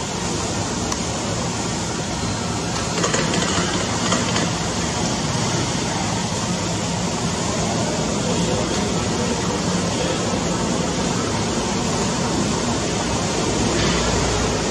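Airbus A320-214's CFM56 turbofan engines running steadily at low taxi thrust as the airliner turns and rolls slowly along the runway, a continuous jet rush with a faint low hum, growing a little louder near the end.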